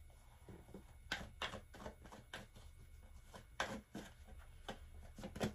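Tarot cards being shuffled by hand: a quiet, irregular run of soft clicks and slaps as the cards are worked between the hands.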